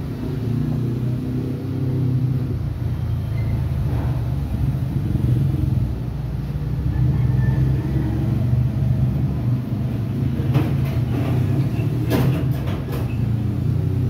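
A steady low machine hum, with a few sharp light clicks and taps near the end.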